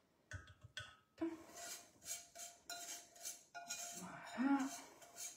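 A spatula scraping melted brown butter out of a small stainless-steel saucepan into a metal mixing bowl: a run of short scraping strokes, about three a second, with light metal clinks.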